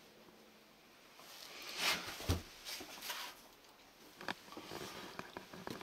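Cardboard boxes and an old book being handled: rustling of cardboard and paper, with a soft thump a little after two seconds in and small clicks and taps near the end.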